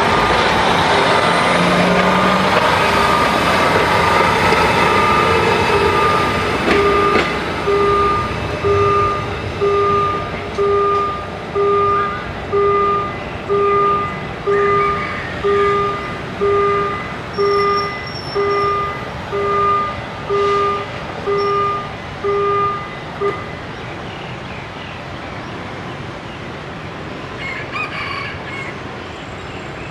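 Diesel railcar train running past over a level crossing while the crossing's warning alarm sounds. The alarm then pulses in an even two-tone beep about once a second and stops about 23 seconds in, leaving a steady hum of road traffic.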